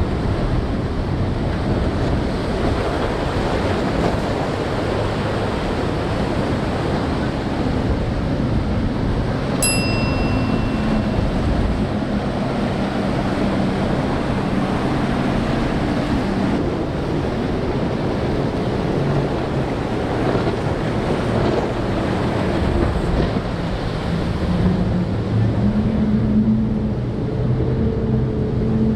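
Steady rush of surf and wind with the drone of outboard motors on fast-running center-console boats, the engine note coming up strongly in the last few seconds. A single bright chime rings out about ten seconds in.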